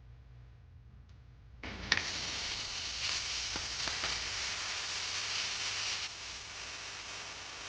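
Food hitting a hot oiled pan about a second and a half in and sizzling; it is loudest for the first few seconds, then settles to a lower steady sizzle.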